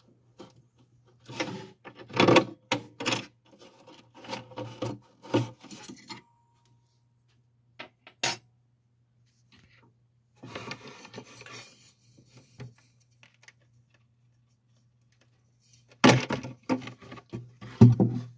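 Rubbing, scraping and knocking of a 7-inch picture tube against a wooden TV cabinet as the tube is twisted free of its melted, sticky gasket and lifted out. The loudest knocks come near the end, as the tube comes out of the cabinet.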